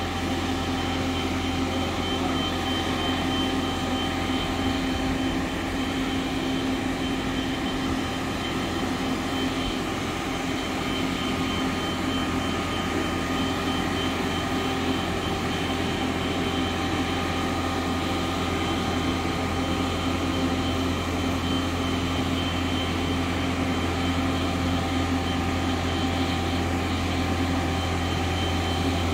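Steady engine hum of a self-propelled boat transporter carrying a yacht hull at a slow crawl, with a deep drone and several constant whining tones above it and no change in pitch or level.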